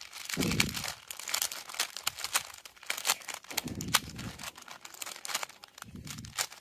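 A 3x3 Rubik's Cube being scrambled by hand: a quick, irregular run of plastic clicks as the layers are turned, with a few dull low thumps from the handling.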